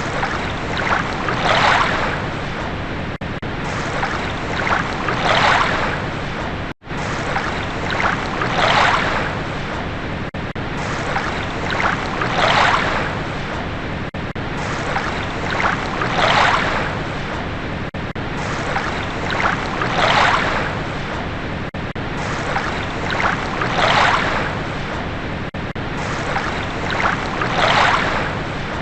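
Ocean waves washing onto a shore, a surge about every four seconds over a steady hiss of surf. The sound cuts out for a moment about seven seconds in.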